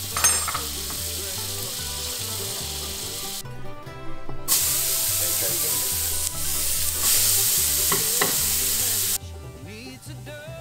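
Butter sizzling in a stainless steel stockpot, then a louder, steady sizzle of diced onion frying in the butter from about halfway. The sizzle cuts off abruptly about a second before the end, over light background music.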